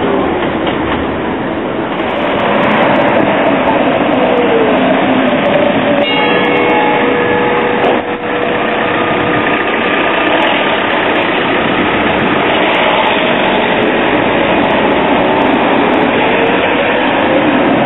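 PCC tram running on rails: a steady rumble with a motor whine that falls in pitch, a brief steady tone about six seconds in, then a tram passing close by with its whine rising as it pulls away.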